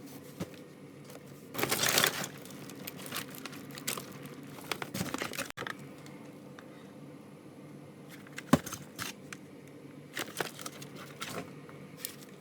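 Crinkling and rustling, like plastic or paper being handled, with scattered light clicks and knocks; the loudest rustle comes about two seconds in, and one sharper knock comes past the middle.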